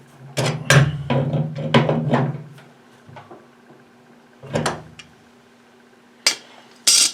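Clattering and scraping of galvanized pipe fittings being handled and worked onto the drain thread, busiest over the first two seconds. A single knock follows about four and a half seconds in, then two sharp knocks near the end.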